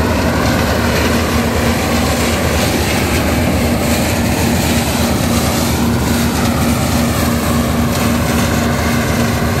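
Zmaj 170 combine harvester working through soybeans: the engine and threshing machinery run loudly and steadily, with a constant hum under a dense mechanical rush.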